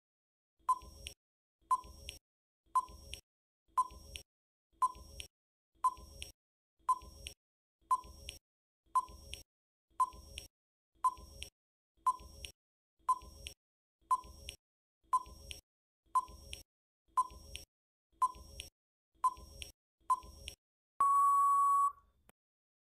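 Quiz countdown timer sound effect: a short beep about once a second, about twenty in all, then a steady buzzer tone lasting about a second as the time runs out.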